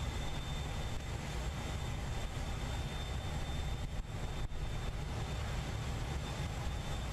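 Steady low machinery rumble with a faint, steady high whine, starting abruptly.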